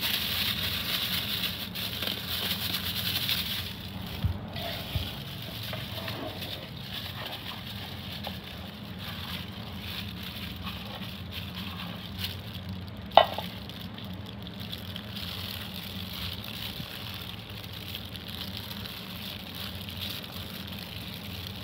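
Chili powder being mixed into sticky rice porridge in a stainless steel pot, by a hand in a plastic glove and a spoon: soft crackling and rustling, louder in the first few seconds, with a sharp knock about thirteen seconds in.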